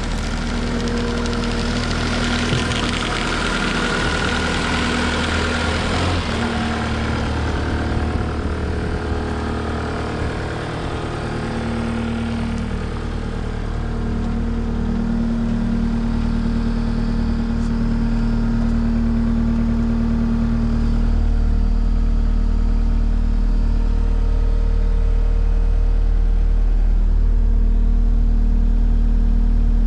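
A 2017 Case SV280 skid steer's diesel engine running steadily. The engine note gets louder and heavier about two-thirds of the way through.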